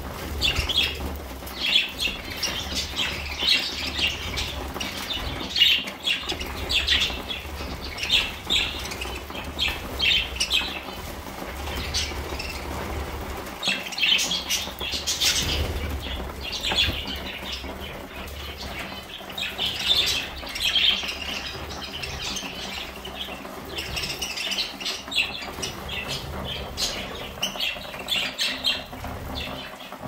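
A flock of budgerigars chirping and chattering in busy spells that swell and ease, over steady pecking and rustling as they eat seed mix from trays.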